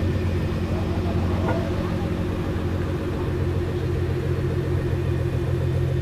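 Nissan GT-R R35's twin-turbo V6 running steadily at low revs as the car pulls away slowly, a low, even exhaust sound with no revving, with other sports-car engines idling nearby.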